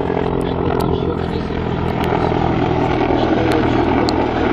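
Mi-28N attack helicopter flying past low overhead: steady rotor and turbine noise, growing a little louder in the first second. A few faint short ticks sound over it.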